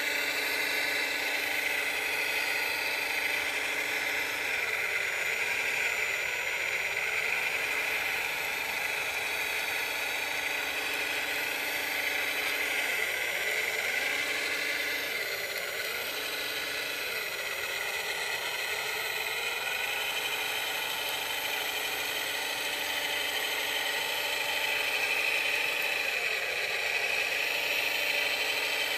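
Radio-controlled scale Cat wheel loader driving and working its bucket: a steady whine of its small electric motors and gearing throughout, with a lower hum that cuts in and out several times.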